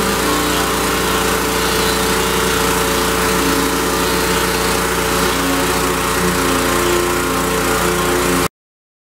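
Gas pressure washer with a Honda GC190 engine running steadily while driving a rotary surface cleaner, its engine note mixed with the hiss of water spraying onto deck boards. The sound cuts off suddenly near the end.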